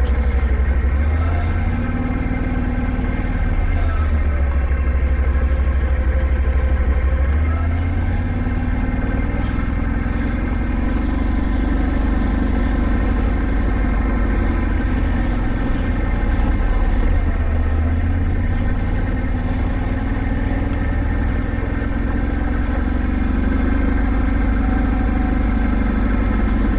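Can-Am ATV engine running at low speed as it is ridden down a rocky trail, its pitch rising and falling gently with the throttle over a steady low rumble.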